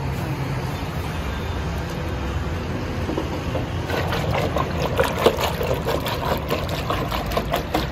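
Steady rumble of road traffic, with a quick run of clicks and clatters starting about four seconds in.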